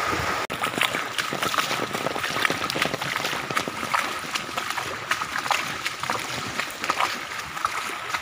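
Footsteps splashing and wading through shallow floodwater flowing over a paved path, each step a short splash, over a steady wash of running water and rain.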